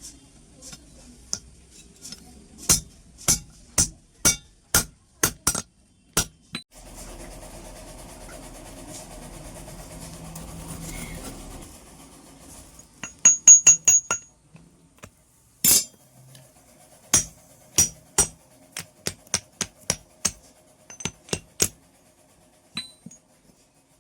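Hammer blows on metal, about two a second, some with a short high ring. The blows break off for about five seconds of steady mechanical noise, then return, with a quick flurry of strikes near the middle.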